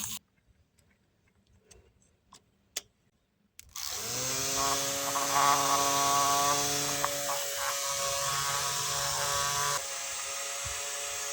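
Small electric DC motor switching on about four seconds in, spinning up and then whirring steadily, a little quieter near the end. A few faint clicks come before it starts.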